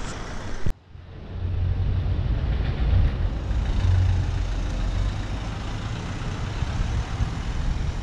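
Car driving past close by on the street, a low rumble of engine and tyres that swells about three to four seconds in. The sound cuts out briefly just under a second in.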